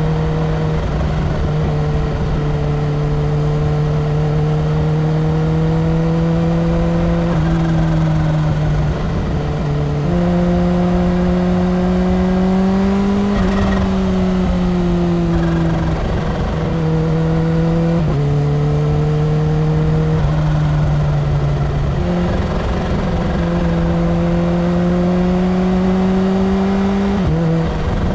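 Kawasaki Ninja H2's supercharged inline-four running at highway speed, heard from on the bike with wind rumble. The engine note holds steady for several seconds at a time and changes pitch suddenly a few times as the rider shifts gear or rolls the throttle on and off, with a brief rise and fall in revs about halfway through.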